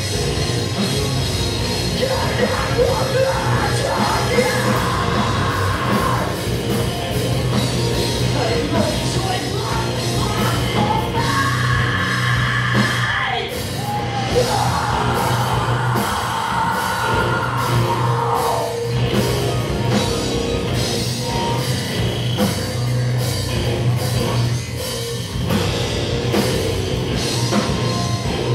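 Post-hardcore band playing loud and live: electric guitars, bass and drum kit, with a vocalist singing and yelling into the microphone. Long held notes ring out through the middle.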